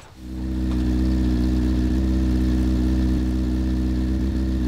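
Engine of a home-built Locost Lotus Super 7-style roadster idling steadily; the sound comes up within the first half second and then holds an even note.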